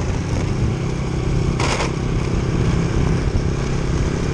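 Motorcycle engine running steadily on the move, with a short rush of noise about one and a half seconds in.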